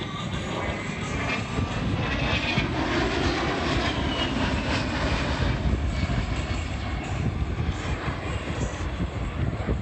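A-10 Thunderbolt II's two TF34 turbofan engines as the jet passes low overhead: dense rushing jet noise with a high turbofan whine, growing louder about a second in and staying loud.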